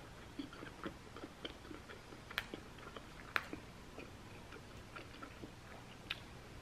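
A person chewing a bite of cauliflower sushi roll with her mouth closed: faint, irregular small clicks, with two sharper clicks about two and a half and three and a half seconds in.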